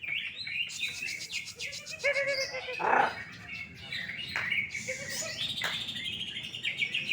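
Cucak ijo (green leafbird) singing a continuous, rapid run of chirps and trills, with a brief louder burst about three seconds in.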